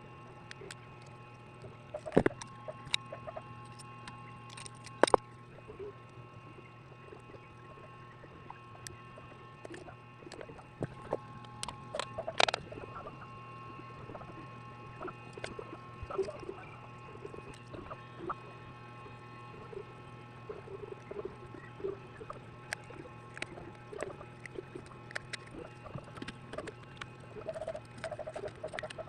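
Small clicks, taps and light scraping of hand tools on a mobile phone being repaired, scattered irregularly, the sharpest a few seconds in and about twelve seconds in, over a steady electrical hum.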